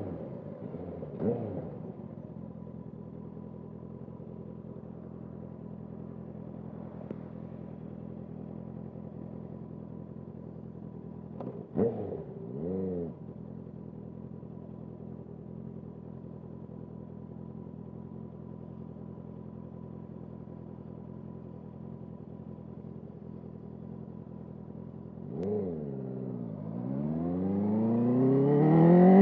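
Motorcycle engine idling steadily, with a quick throttle blip about a second in, two more blips near the middle and another shortly before the end. In the last few seconds the revs climb steadily as the bike pulls away.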